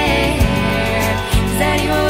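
Background music: a song with a singing voice over instruments and a steady bass line.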